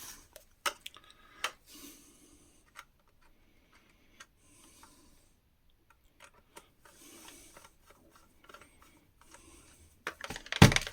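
Faint clicks and rubbing of hands and tools working on the plastic body of a Dyson V6 cordless vacuum during disassembly, with a louder clatter about ten seconds in as a part comes away.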